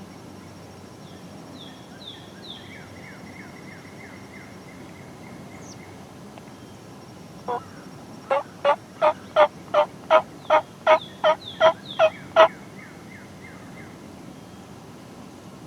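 A run of about thirteen loud, sharp turkey yelps, about three a second, building to the loudest at the end.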